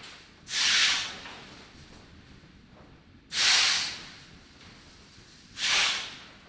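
Sound installation giving out three short bursts of hiss about two and a half seconds apart, each starting sharply and dying away within a second, over a faint steady hiss.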